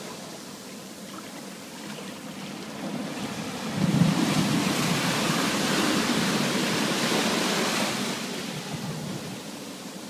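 Ocean surf: a quiet wash of water, then a wave breaks suddenly about four seconds in, and its crash and rushing foam last several seconds before fading back to a soft wash near the end.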